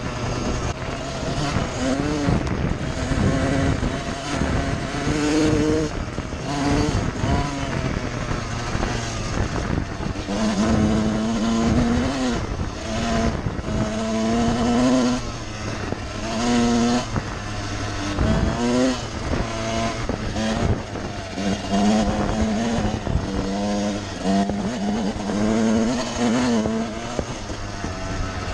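1999 Suzuki RM125 single-cylinder two-stroke motocross bike being ridden hard, its engine revving up and dropping back again and again as the throttle is worked through the gears.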